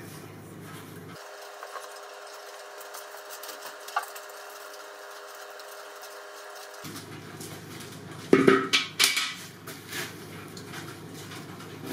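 A few sharp metallic clinks and knocks, bunched together about eight to ten seconds in, over a steady low workshop hum.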